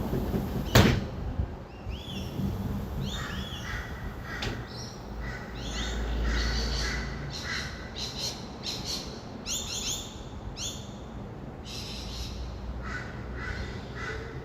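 Flock of rainbow lorikeets calling at dawn, many short, harsh, repeated screeches overlapping, over a low hum of distant traffic that swells for a couple of seconds near the middle. A single sharp knock sounds just under a second in.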